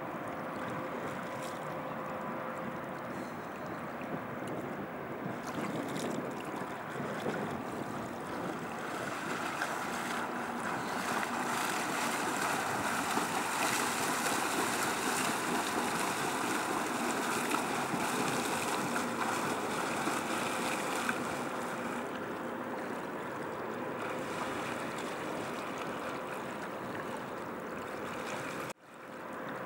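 Rhine river water washing and lapping, with wind on the microphone. It is a steady rush that swells louder through the middle, then cuts out for a moment just before the end.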